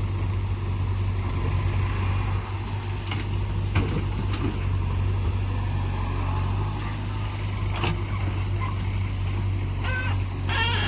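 Heavy diesel machine engine running steadily with a deep, even hum, with a few short knocks.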